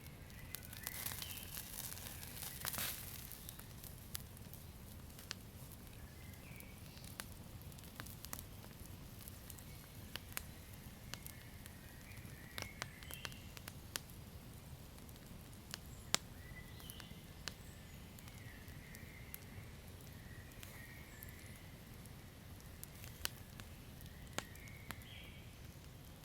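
Wood fire crackling: scattered sharp pops and snaps over a steady low rumble of flames, with a denser run of crackles about two seconds in and faint high hisses or squeaks now and then.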